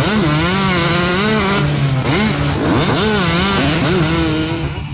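An engine revving up and down again and again, its pitch rising and falling in waves with a few quick sharp climbs midway.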